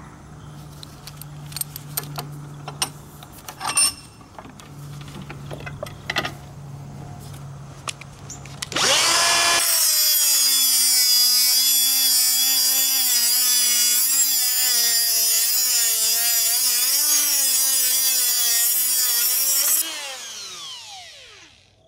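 A few clicks and knocks, then a Makita 18-volt cordless die grinder with a 3-inch metal cut-off disc spins up and cuts through a hardened padlock shackle about 11 mm thick. It makes a loud, high screech for about ten seconds, its pitch wavering under load. It spins down once the shackle is cut through.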